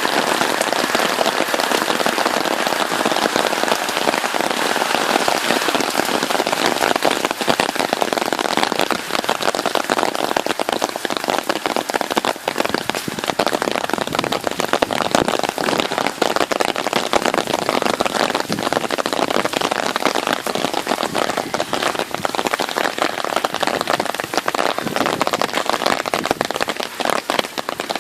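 Heavy rain pouring down: a dense, steady patter of countless drops.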